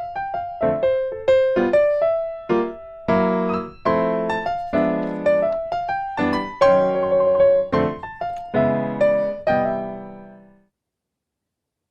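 Background piano music: a gentle melody over chords that ends on a final chord about ten seconds in, followed by silence.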